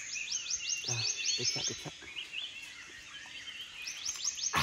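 Forest bird calling: rapid runs of high, falling chirps, one at the start and another near the end.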